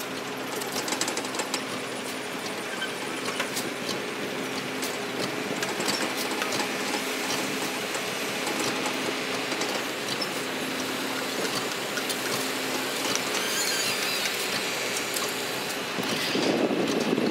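Excavator's diesel engine running steadily, with scattered clicks and clanks of machinery; the sound swells louder briefly near the end.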